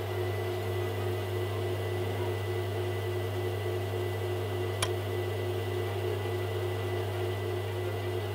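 Lapidary cabbing machine running steadily, its motor humming as the water-fed grinding wheel spins. A single short click about five seconds in.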